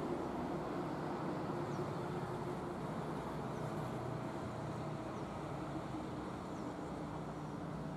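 Hitachi ZX200 hydraulic excavator's diesel engine running steadily with a low hum while it works its boom and bucket digging river sediment. A higher steady tone joins about three seconds in.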